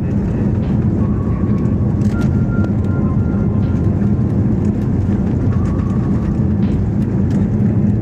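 Cabin noise of an Airbus A320-family jet airliner on its runway roll: a loud, steady low rumble from the jet engines and the wheels on the runway, heard from inside the cabin.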